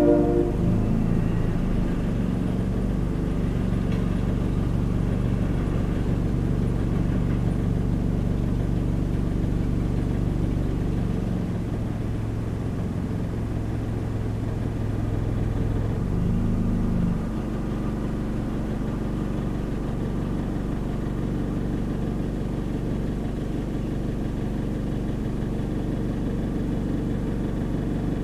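Car engine idling, heard from inside the cabin as a steady low hum. Its pitch shifts a couple of times, most clearly about seventeen seconds in.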